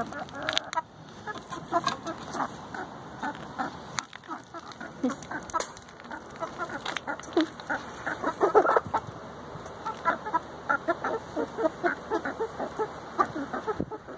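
Several hens clucking in short, repeated calls, many overlapping, busiest a little after the middle.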